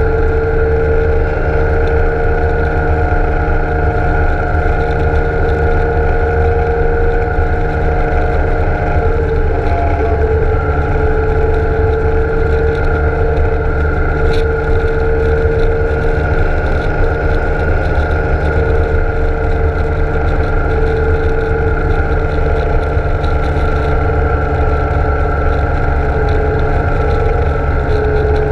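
BMW K1600 GTL motorcycle's inline-six engine cruising at a steady speed: an even drone over heavy wind rumble on the microphone, its pitch shifting slightly about ten seconds in.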